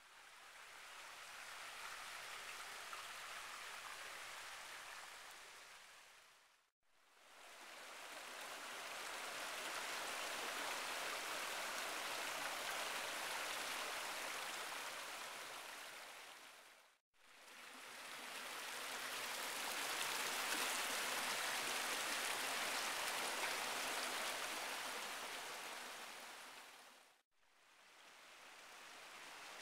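Flowing creek water, a steady rushing that fades out and back in three times, about every ten seconds.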